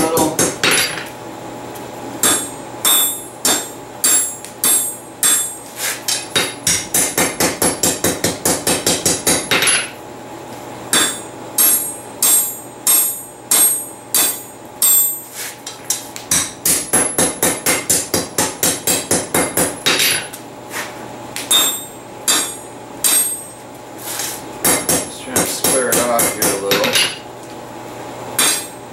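Hand hammer striking hot steel rebar on an anvil, each blow ringing, in fast runs of three or four strikes a second broken by short pauses. This is the rod's hot end being upset and straightened to gather metal for a spoon bowl.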